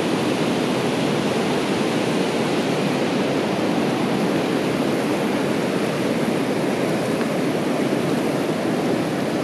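The Tiroler Ache, a mountain river running high and fast with a lot of water, giving a steady rush of water.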